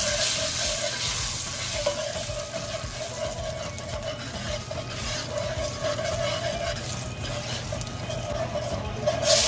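Coconut sugar sizzling as it browns in hot oil, while a metal spoon stirs and scrapes it around a ceramic-coated frying pan: the sugar being browned to start a curry stew.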